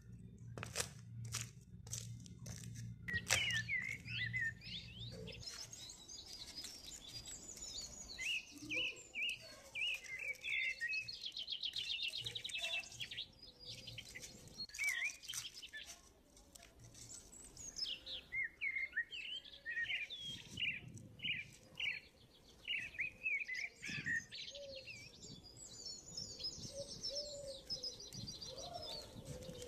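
Small birds chirping repeatedly, with a quick trill now and then. A few sharp clicks come in the first three seconds.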